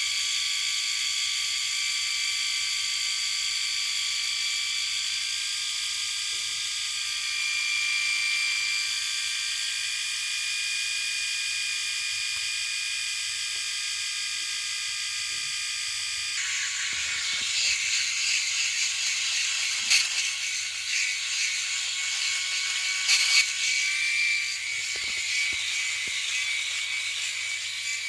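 Electric shaver buzzing steadily with a high whine. About two-thirds of the way through the sound turns rougher and grittier, with a few sharp clicks.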